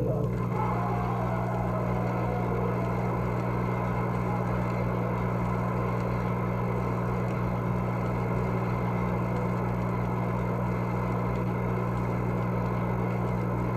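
Audience applauding steadily. It is heard on an old 1957 recording with a constant low electrical hum underneath.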